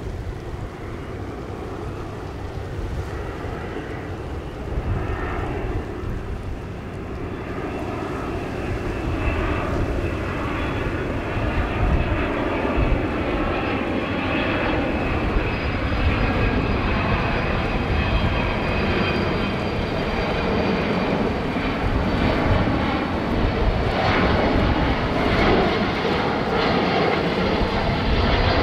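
A Boeing 767-300 airliner's twin jet engines on landing approach, growing steadily louder as the jet comes closer. A faint steady high whine appears about a third of the way in.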